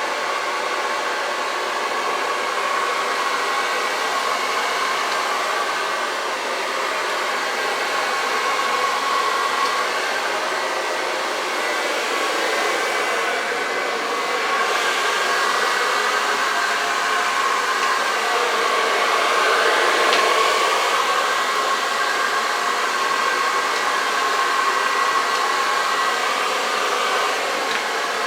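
Hand-held hair dryer running continuously, blowing wet acrylic paint across a canvas; a steady rush of air with a faint whine, its level swelling and easing slightly.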